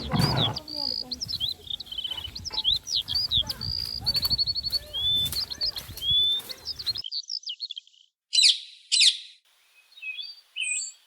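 Songbirds chirping and trilling, many quick overlapping calls. About seven seconds in the sound changes abruptly to sparser chirps, with two short noisy bursts a little under a second apart.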